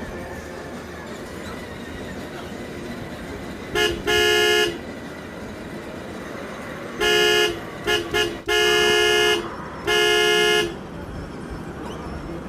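Electronic horn of a kid's ride-on toy vehicle beeping in honks of about half a second to a second: one about four seconds in, then a run of honks with three quick short beeps in the middle, and a last honk near the end.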